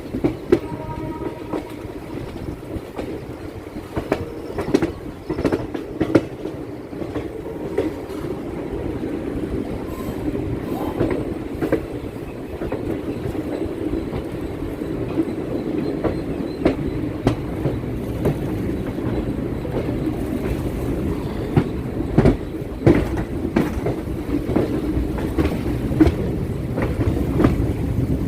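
Chennai MRTS electric suburban train running on the rails: a steady rumble with irregular clacks of the wheels over rail joints, slowly growing louder.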